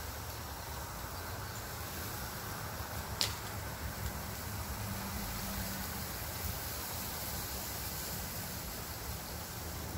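Steady background noise, a low hum under a hiss, with one short sharp click about three seconds in.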